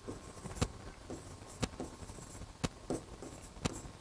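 A clock ticking steadily about once a second, with fainter small taps and rustles in between.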